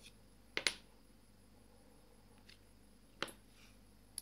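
Short, sharp clicks of steel calipers and brass pen-kit parts being handled as the calipers' jaws are closed on the parts: a quick double click about half a second in, the loudest, then single clicks a little after three seconds and at the end.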